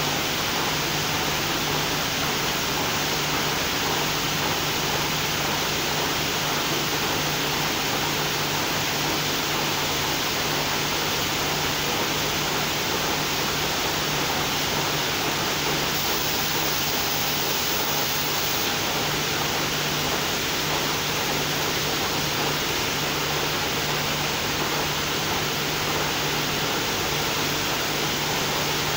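Steady, even mechanical noise of circular sock-knitting machines running, with a low steady hum underneath and no change throughout.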